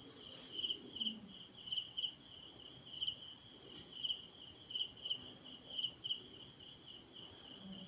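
Crickets chirping in the background, short high chirps about twice a second, over a faint steady high-pitched whine.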